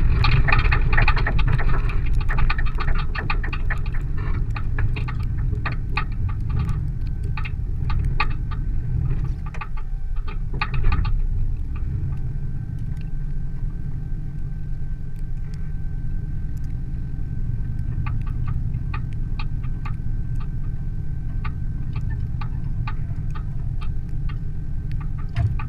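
A vehicle engine running with a steady low rumble, over scattered rattles and clanks, a little louder in the first few seconds.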